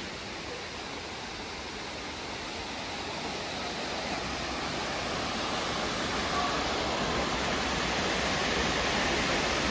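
Rushing water of Dunn's River Falls: a steady rushing noise that grows gradually louder.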